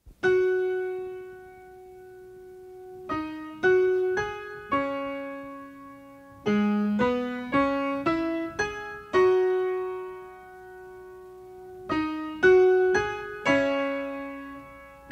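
Slow solo piano music: single notes and chords struck one at a time and left to ring out and fade, with pauses between them.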